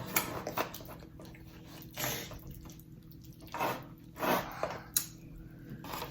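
Eating sounds: a few irregular wet, squishy chewing and mouth noises with a sharp click about five seconds in.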